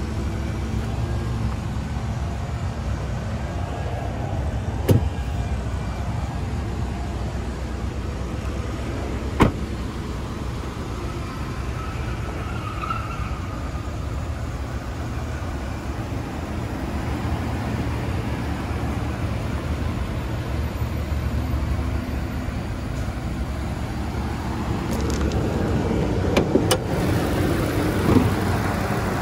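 2016 Ford F-550 Super Duty truck engine idling steadily, with a few sharp clicks over it about five and nine seconds in and a cluster near the end.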